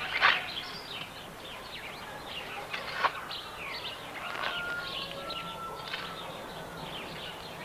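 Several songbirds chirping and calling outdoors: many short, quick notes throughout, with two brief held whistles around the middle.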